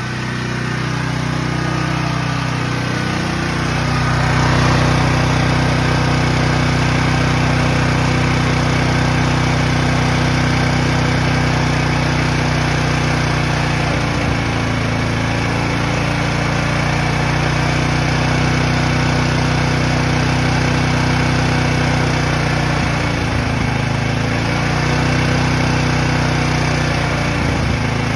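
Briggs & Stratton Storm Responder 6250 portable generator engine running on propane at a steady speed. Its pitch dips briefly and recovers a few times in the second half.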